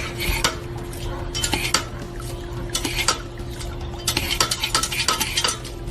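Irregular light clattering and clinking, many short knocks, over a steady low hum.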